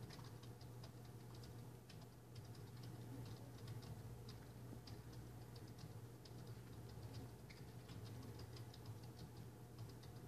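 Near silence: a steady low hum with faint, irregular high ticks scattered through it.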